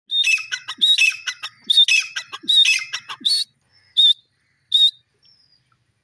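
Grey francolin calling: a loud, rapidly repeated run of high call phrases for about three and a half seconds, then two shorter single notes about a second apart.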